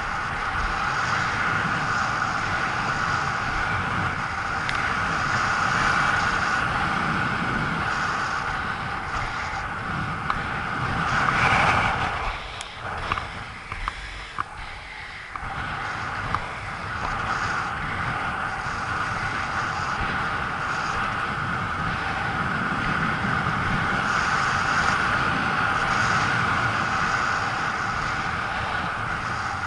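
Inline speed skate wheels rolling fast on an asphalt path, a steady rolling noise with wind buffeting the microphone. About twelve seconds in it dips quieter for a few seconds with a few light clicks, then the rolling noise comes back.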